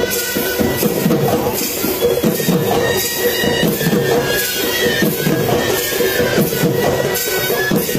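Chhau dance music: drums beating a quick, busy rhythm under a reed pipe holding long, steady notes.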